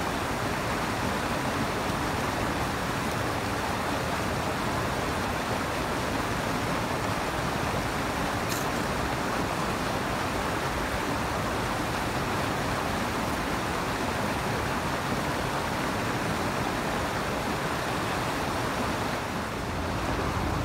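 Small mountain creek's pocket water running steadily over rocks close by, an even rush of water with a faint click about halfway through.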